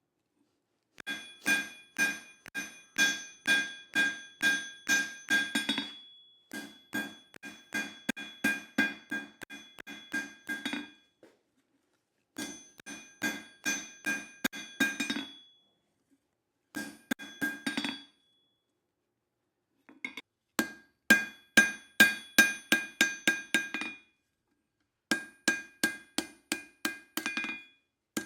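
Hand hammer striking hot leaf-spring steel on an anvil in runs of steady blows, about two to three a second, each with a bright ringing note. The runs are broken by short silent pauses. This is the reins of a pair of tongs being drawn out thinner into a fishtail.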